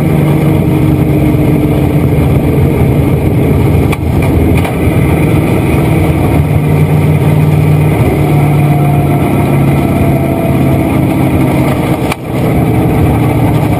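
Dirt-track race car's engine running hard, heard loud from inside the cockpit, at a fairly steady pitch, with brief dips in loudness about four seconds in and again near the end.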